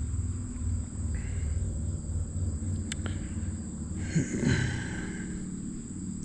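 Steady high chirring of crickets over a low outdoor rumble, with one sharp click about three seconds in and a brief rustle a little after four seconds.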